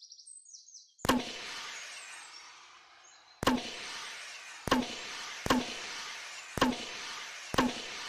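Signal flare launcher fired six times, each shot a sharp crack followed by a hissing trail that slowly fades. The first shot comes about a second in, the rest follow at uneven intervals of about a second.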